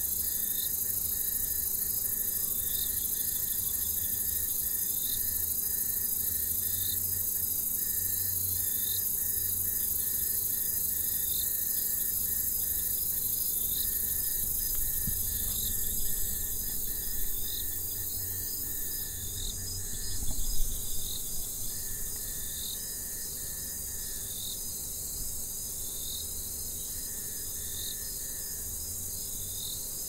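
Insect chorus: a dense, steady high-pitched trilling of crickets or similar insects, with a short chirp repeating about every two seconds. Under it runs a low rumble that swells briefly twice around the middle.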